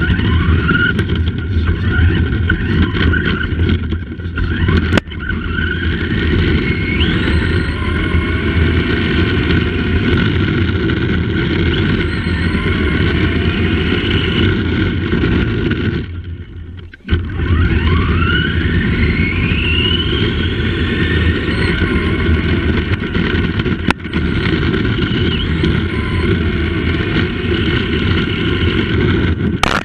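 Tamiya Madcap RC car's electric motor whining and rising in pitch each time it accelerates, over a loud, steady rumble of tyres and chassis on the road surface. It is heard up close from a camera clamped to the car's bumper. The sound cuts out for about a second past the middle as the car stops, then picks up again with another rising whine.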